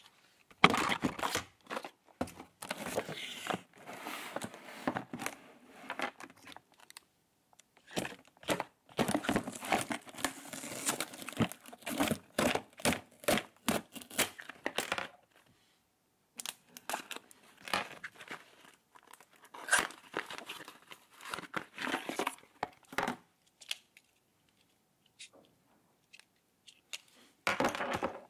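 Adhesive tape being torn and peeled, with cardboard and packaging handled: irregular bursts of ripping and crinkling separated by short pauses.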